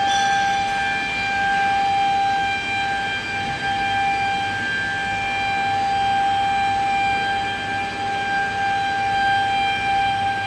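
A steady, high-pitched machine whine that holds one pitch throughout, with a low hum beneath it, from workshop machinery around a fiber laser cutter.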